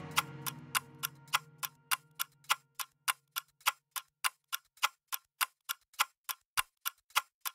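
A break in the background music: a low held note fades out while an even, clock-like ticking goes on, about three or four ticks a second.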